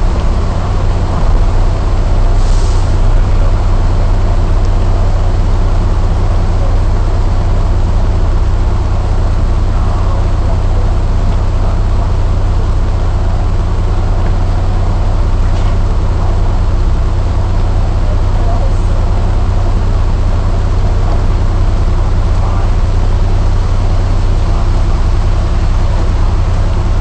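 Diesel engine of a KMB S3V (Volvo Olympian) non-air-conditioned double-decker bus idling steadily while stopped at a red light, heard from the upper deck over a constant hiss of heavy rain and wet road. A short hiss comes about two and a half seconds in.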